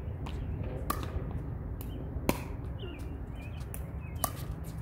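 Pickleball paddles hitting the hard plastic ball back and forth in a rally: several short, sharp pocks, the loudest a little after halfway through.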